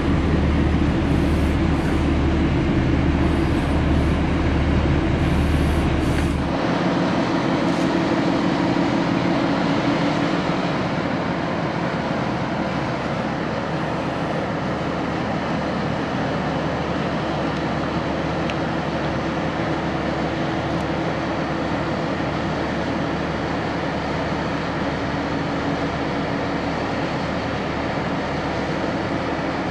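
A cargo ship's diesel engine running with a steady low hum. The deep rumble under it drops away about six seconds in.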